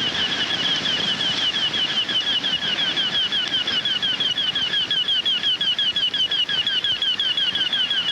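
Multi-tone electronic position bleeper sounding a rapid, steady train of high-pitched chirps: an audible marker that a rider with failing sight steers his horse towards around the arena.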